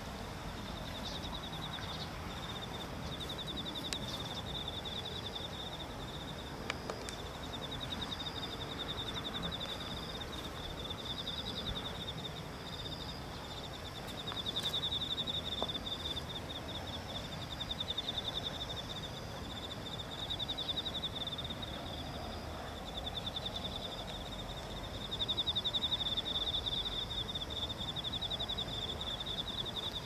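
Crickets chirping in a field in a continuous fast pulsed trill, swelling louder in bouts every few seconds, over a low background rumble.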